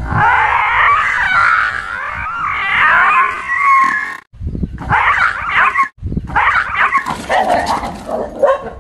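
A dog whining in high, wavering tones, cut off abruptly about four seconds in and again near six seconds.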